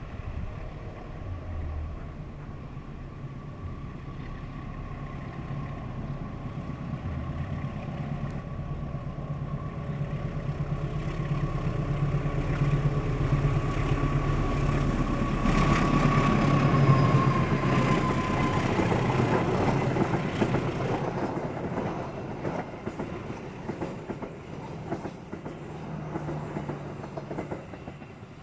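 Diesel locomotive hauling passenger coaches approaching and passing close by: engine hum and the rumble and clatter of wheels on the rails build to a peak about halfway through, while a steady whine drops slightly in pitch as the locomotive goes past, then fade as the coaches roll away.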